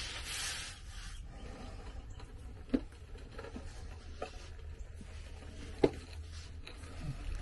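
Handling noise from the camera moving about under the truck: rustling in the first second, then rubbing and a few sharp knocks, over a steady low hum.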